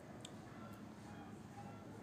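Faint sounds of a person chewing a piece of chicken, with one small sharp click about a quarter of a second in.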